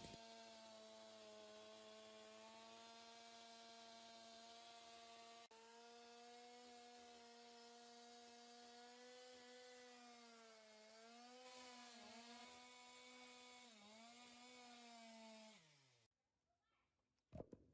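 Restored Stihl 041 two-stroke chainsaw engine running at high revs, its pitch sagging briefly a few times, then winding down and cutting off about sixteen seconds in. A short thump follows just before the end.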